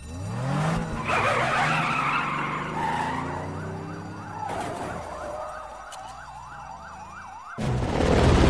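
A car engine revs up sharply, its pitch rising, then police sirens yelp in a fast rising-and-falling pattern. About seven and a half seconds in, a loud low rumble cuts in.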